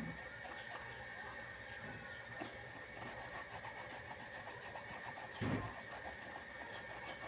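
Faint scratchy rubbing of a brush scrubbing a white canvas Converse sneaker during cleaning, with a soft thump about five and a half seconds in.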